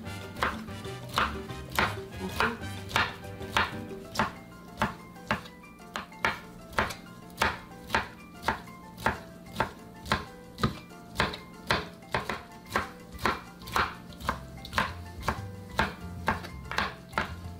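Large kitchen knife chopping boiled green beans on a plastic cutting board: a steady run of sharp taps, about two strokes a second.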